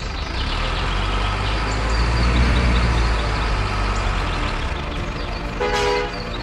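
A truck engine running with a deep rumble that swells about two seconds in and eases off again, and a short horn toot near the end.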